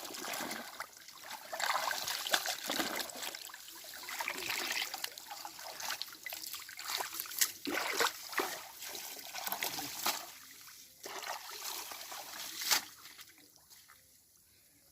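Water splashing and trickling, with many sharp splashes among the running water; it dies down near the end.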